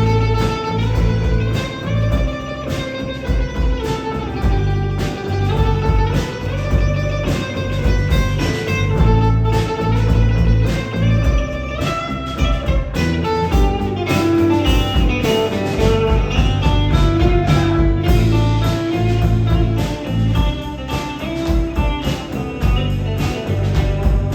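Live band playing an instrumental break, with guitar out front over bass and a steady drum beat.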